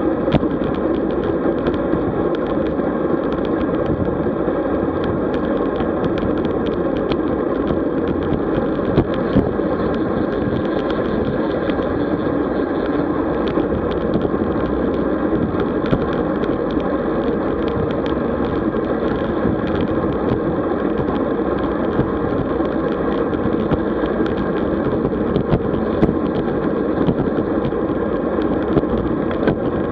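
Steady wind and road noise of a road bicycle riding along, picked up by a camera on the move, with frequent small clicks and rattles.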